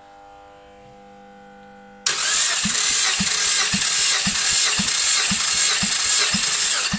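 Mitsubishi 6B31 3.0-litre V6 being cranked over for a compression test on cylinder one, with a steady whirring hiss and a low thump about twice a second as the cylinder compresses against the gauge. The cranking starts suddenly about two seconds in and stops near the end, and the gauge builds to about 14 kg/cm².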